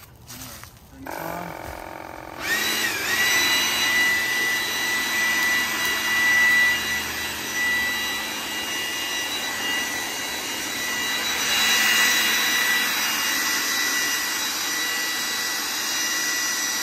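Ryobi 40-volt battery leaf blower fitted with a misting adaptor, running. It starts about a second in and spins up to full speed at about two and a half seconds, then holds a steady high whine over rushing air as it blows out spray mist.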